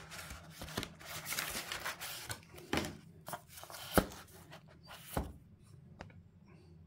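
Cardboard packaging being handled: a box flap and paper booklets rustling and rubbing, with a few light knocks, the sharpest about four seconds in, then quieter handling.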